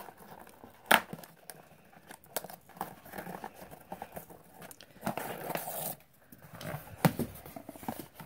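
Hands undoing plastic ties threaded through a cardboard doll-box insert: cardboard and plastic rustling and scraping, with a sharp click about a second in and another about seven seconds in.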